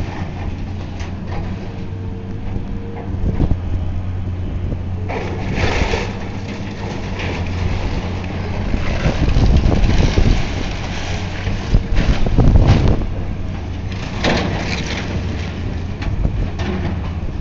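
Heavy demolition machine working on an old building, its engine a steady low drone, with crunching and crashing of breaking walls and falling debris several times.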